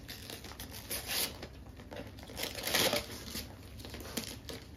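Gift wrapping paper crinkling and tearing in irregular rustles as a present is unwrapped, loudest about three seconds in.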